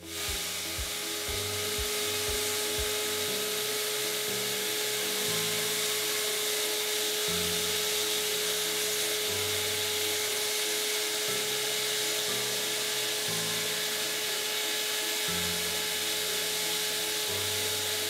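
Vacuum cleaner starting up and then running steadily with a constant whine, pulling air and cleaning fluid through a Vinyl Vac 33 wand pressed onto a wet vinyl record.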